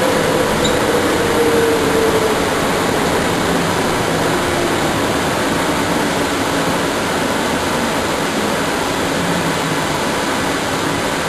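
Automated airport shuttle train running, heard from inside the car: a steady rushing noise with a motor whine that falls in pitch over the first five seconds or so as the train slows into the station.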